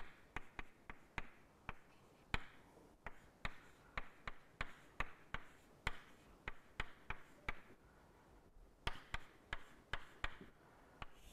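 Chalk tapping and scratching on a chalkboard as an equation is written: irregular sharp taps, two or three a second, with short scrapes between them and a brief pause partway through.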